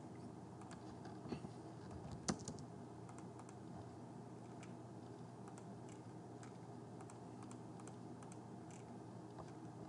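Faint computer keyboard typing and clicking, with one sharper click about two seconds in, over a low steady hum.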